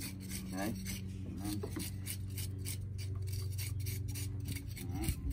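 A scaling knife scraping the scales off a fresh bluefish in quick repeated strokes, over a steady low hum.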